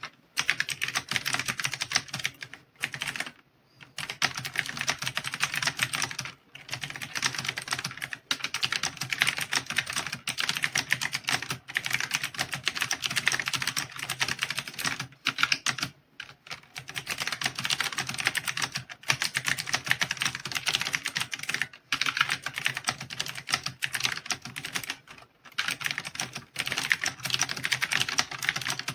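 Fast typing on an AULA F2088 mechanical keyboard with clicky blue switches: a rapid stream of key clicks and clacks, broken by short pauses every few seconds.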